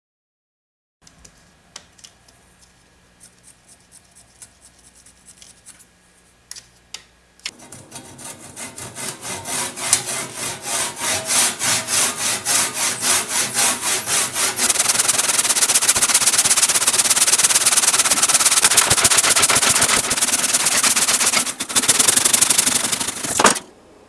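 Handsaw cutting across a maple log: after a few faint handling clicks, steady back-and-forth saw strokes, about two or three a second, get louder and faster into continuous sawing that stops suddenly near the end.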